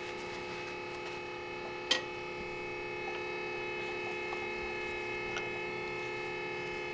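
A steady hum of several tones, with one sharp click about two seconds in and a few faint ticks, as a screwdriver turns the drain screw back into an outboard's lower-unit gearcase.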